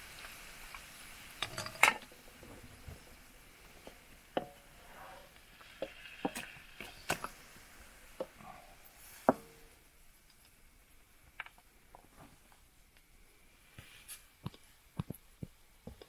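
Scattered light clicks and knocks, about a dozen, the sharpest near 2 and 9 seconds in, over a faint hiss that drops lower about 10 seconds in.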